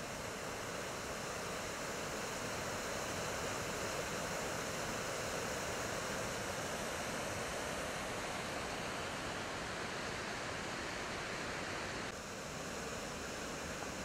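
Mountain stream rushing over boulders and small cascades: a steady, even rush of water, slightly duller after about twelve seconds.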